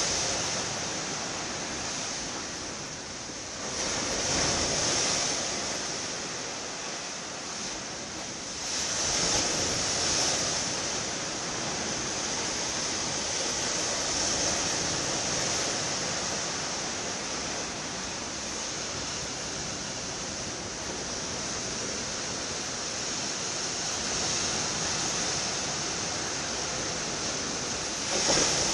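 Sea waves breaking and washing ashore: a steady rushing hiss that swells with a surge every four to five seconds, then runs on more evenly.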